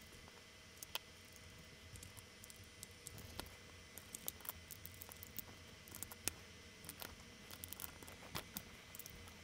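Faint, irregular light clicks and taps as snap-in electrolytic capacitors are pushed into their holes on a circuit board and knock against one another.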